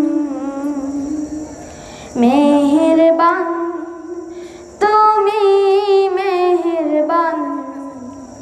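A boy singing a Bengali nasheed into a microphone with no instruments, holding long, wavering notes. A new phrase begins about two seconds in and another about five seconds in, each fading away slowly.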